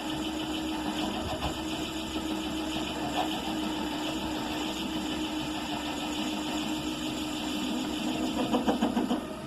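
Vintage Myford lathe, driven by a DC motor on a PWM speed controller, running at a steady speed with a steady hum while taking a dry cut. The sound grows louder and uneven about a second before the end.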